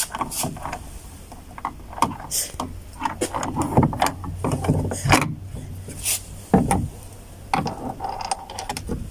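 Socket ratchet wrench clicking in irregular spurts, with scattered knocks of tools on the door's metal and plastic, as the bolts holding a car door trim panel are loosened.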